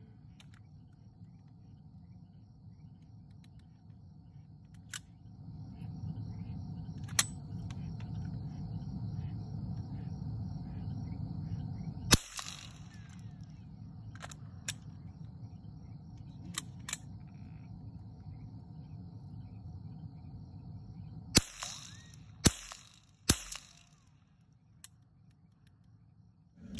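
AR-15 rifle shots: a single sharp shot about twelve seconds in, then three shots in quick succession near the end. Under them is a steady low engine rumble, which stops with the last shots.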